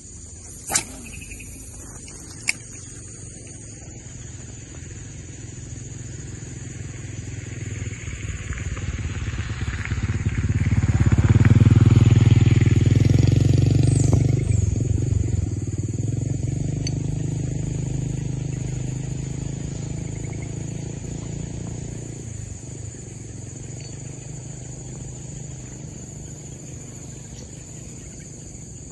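A motorcycle passing by: its engine builds slowly, is loudest about twelve seconds in, then fades away over the next ten seconds or so. A steady high-pitched insect drone runs underneath, with a couple of sharp clicks near the start.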